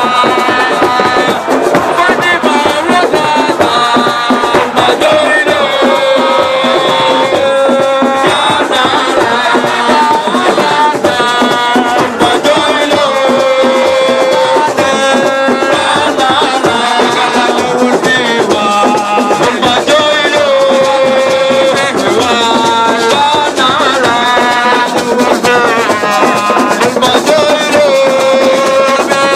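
Music: a voice singing long, wavering held notes, the same phrase returning every few seconds, over dense fast percussion with rattles.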